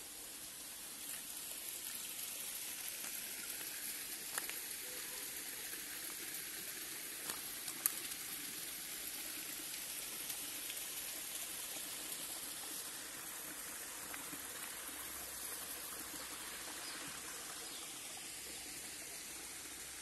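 Steady hiss of a small forest stream running over rocks, with a few brief clicks around four and eight seconds in.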